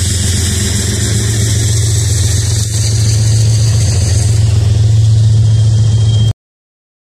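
Large diesel engine running steadily at idle, a constant low hum under a strong hiss. The sound cuts off suddenly about six seconds in.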